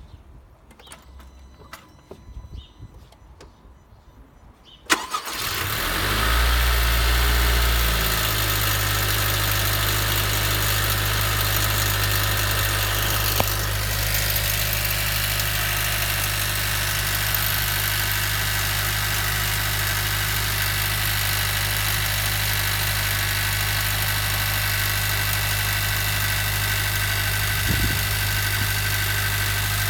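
Honda Civic 1.5-litre turbo four-cylinder started from cold about five seconds in, after a few faint clicks. It runs faster for a couple of seconds, then settles into a steady idle. This is the cold-start noise the owner considers a problem.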